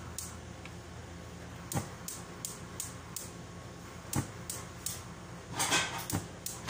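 Gas stove's push-button igniter clicking over and over, a couple of clicks a second at uneven spacing, as the burner is turned to relight it: the flame has gone out and won't catch. A brief louder rush of noise comes about five and a half seconds in.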